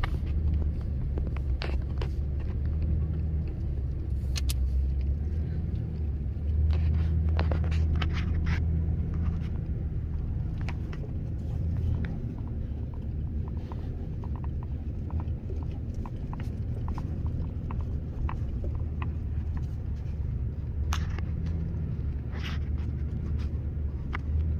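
Low, steady rumble of a Toyota Tundra pickup's engine and tyres heard from inside the cab as it creeps over a sandy dirt track towing a travel trailer, with scattered light clicks and knocks.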